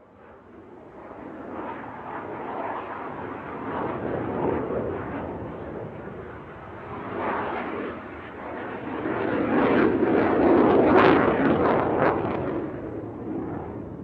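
Jet aircraft roar swelling up from silence, growing unevenly louder to a peak about ten to eleven seconds in, then dying away: a jet passing overhead.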